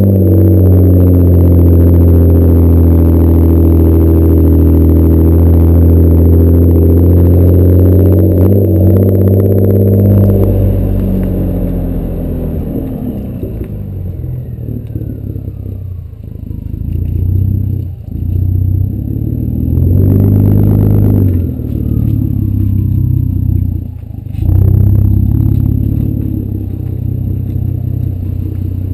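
Exhaust of a 2010 Ford Taurus SHO's twin-turbo 3.5-litre EcoBoost V6 through a custom cat-back: a loud, steady drone for about ten seconds, then the engine drops back and takes three short bursts of throttle, each dying away again.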